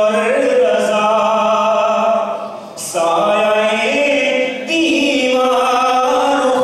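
A man chanting melodically, holding long drawn-out notes in three phrases with short breaks between them.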